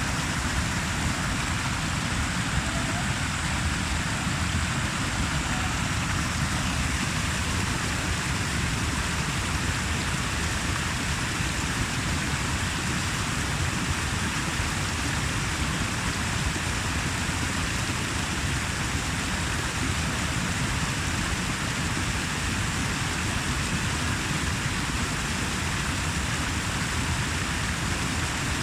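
Running water rushing steadily, an even hiss with a deep rumble beneath it.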